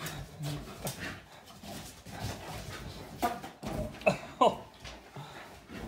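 Dogs playing excitedly, with several short, falling yips and whines from a dog between about three and four and a half seconds in, among scattered thumps.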